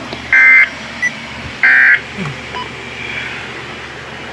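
Weather radio SAME end-of-message data bursts: two short, raspy digital chirps about a second and a half apart, the closing code of an alert broadcast, over steady radio hiss.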